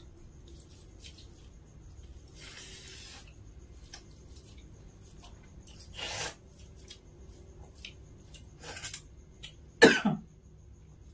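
Quiet mouth and hand sounds of people eating rice with their fingers, with a few short, soft noises. About ten seconds in comes a single short cough, the loudest sound.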